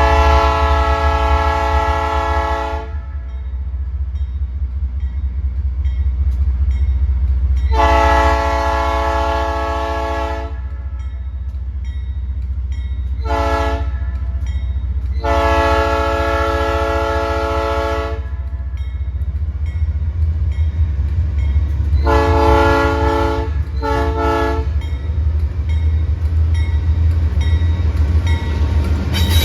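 Air horn of an AC44i diesel locomotive sounding repeated blasts as the train departs: a long blast, a second long one, a short toot, a third long blast, then two shorter blasts close together near the end. A steady low rumble from the train runs underneath.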